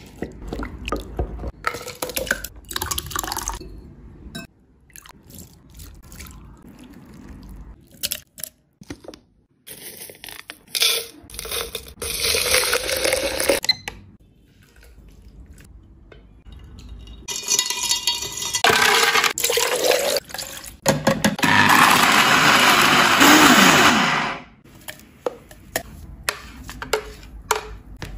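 Food-preparation sounds: grapes being pressed with a masher in a glass bowl at the start, then a run of clicks and liquid sounds. About two-thirds of the way through comes a long, loud stretch of steady rushing noise, the loudest sound here, which stops suddenly.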